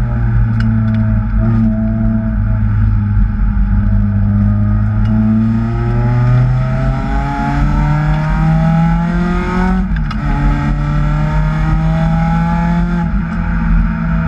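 Supercharged Acura TSX engine pulling hard: the revs climb, drop sharply at an upshift about ten seconds in, then climb again and level off near the end.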